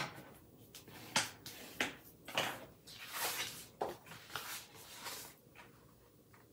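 Heavy cardstock being folded and creased by hand with a bone folder: a series of about eight short scraping and rustling strokes of paper under the tool and hands.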